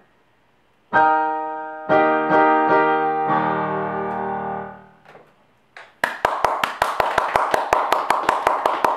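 Digital piano playing the closing chords of a piece: loud chords struck about a second in, held and dying away by about five seconds. Then hand clapping, about seven claps a second, starts near six seconds.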